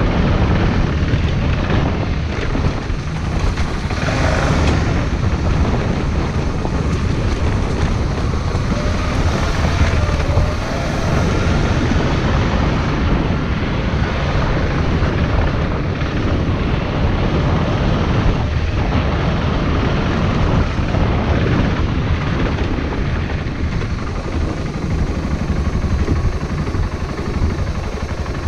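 Wind buffeting the microphone while riding, a steady deep rumble with a hiss above it and no engine note.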